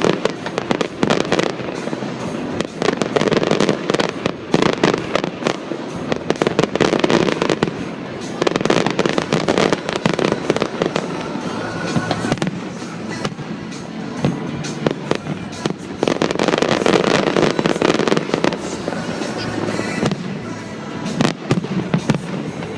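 Aerial fireworks bursting in quick succession, a dense run of bangs and crackles, with music playing over loudspeakers.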